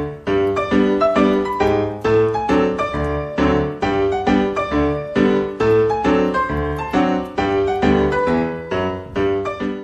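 Background music: a melody of evenly paced notes, about three a second, each struck sharply and fading.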